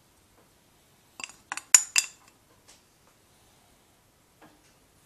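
Metal spoon clinking against a dish: four quick, ringing clinks a little over a second in, then one faint tap near the end.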